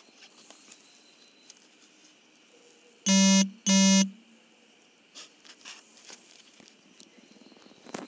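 Two short, buzzy electronic beeps about half a second apart, around three seconds in, over faint clicks.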